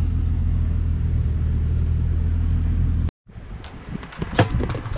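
A BMW E34's engine idling steadily, heard from inside the cabin as a low drone, until an abrupt cut about three seconds in. A few light knocks and rustles follow as plastic cups are dropped into a bucket trash bin.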